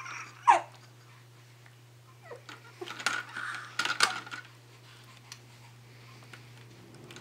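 Baby cooing: a short squeal that slides down in pitch about half a second in, then a few soft coos and little sounds between about two and four seconds in. A steady low hum lies underneath.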